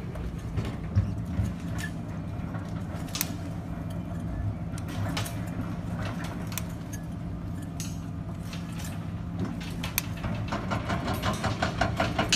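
Pliers and steel tie wire clinking and ticking against rebar as the intersections are hand-tied, over a steady low engine hum. Near the end a fast, even pulsing of about four or five beats a second sets in.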